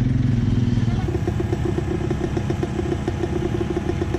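A small engine running: a steady low hum that changes about a second in to an even, rapid pulsing.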